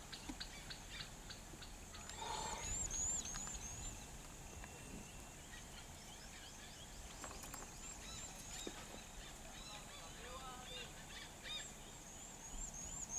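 Faint outdoor ambience with birds calling: a run of about six quick, high notes repeats three times, about two seconds in, around the middle and near the end, with scattered lower chirps in between.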